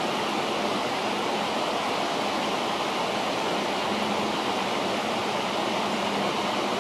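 River water rushing steadily, an even flowing noise.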